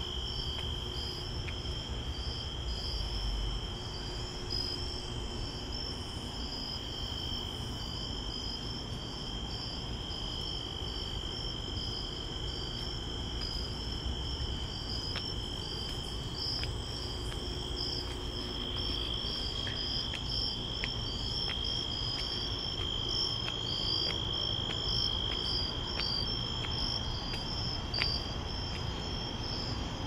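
Crickets calling at night: one steady, unbroken trill and, above it, another insect's rapid, repeated chirps, over a low steady background rumble.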